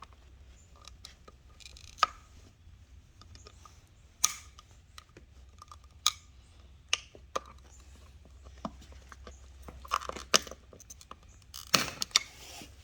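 Scattered sharp clicks and knocks of small hard objects being handled, about a dozen at uneven intervals, the loudest near the end, over a low steady hum.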